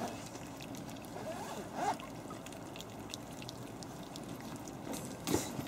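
A litter of Havanese puppies eating wet food from a metal pan: faint lapping and chewing with scattered small clicks, a short squeak about two seconds in, and a brief louder sound near the end.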